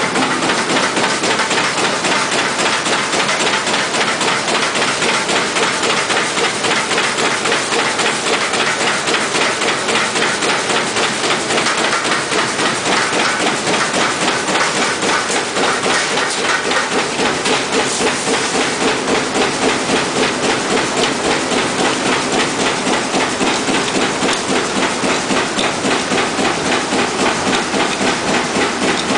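Automatic roll-fed paper cup fan die-cutting machine running: a steady, fast, even clatter of repeated cutting strokes with a constant hiss.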